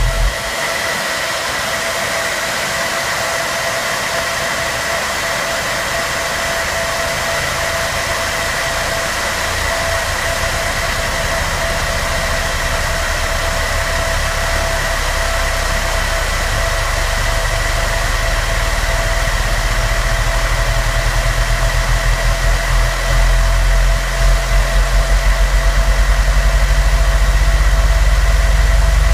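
Car subwoofers playing a loud, constant low bass test tone, driven by two strapped amplifiers while their current and voltage are clamped to measure power and box rise. The bass pulses rapidly and grows louder, stepping up about three quarters of the way through, over a steady hiss and a high steady whine.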